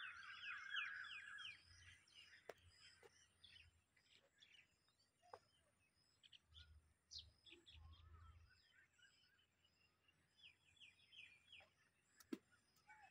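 Faint birds chirping: a quick run of chirps at the start and another near the end, with scattered single chirps between. One sharp click comes near the end.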